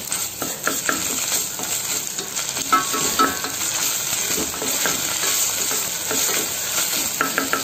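Onions and freshly added ginger-garlic paste sizzling in hot oil in a steel pressure cooker. A wooden spatula stirs them, scraping the pot's bottom in short strokes with an occasional brief squeak.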